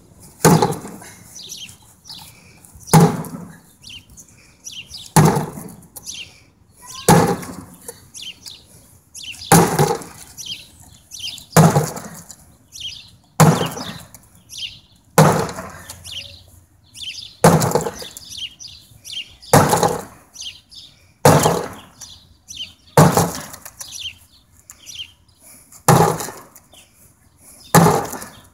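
A pointed metal tool swung overhead and driven repeatedly into a thick door, about one sharp crack every two seconds, each blow punching a hole through the door's surface.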